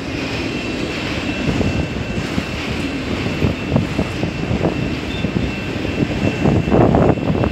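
CN freight train passing at speed: a steady rumble with rapid clatter of wheels on the rails, a faint high steady tone above it, getting louder near the end.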